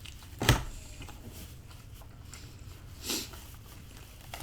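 Two brief noises from eating and handling food at a table: a sharp, loud knock about half a second in and a softer one about three seconds in, against a quiet room.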